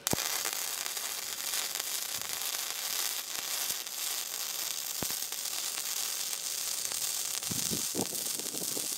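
Wire-feed welding arc crackling and sizzling steadily as a bead is run on a steel base plate. It strikes right at the start and then burns on without a break.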